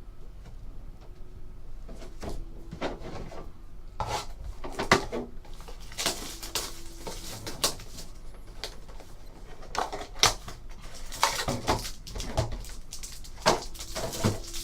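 Football trading cards and their packaging being handled: an irregular run of small clicks, taps and rustles as cards are set down and the next pack is readied.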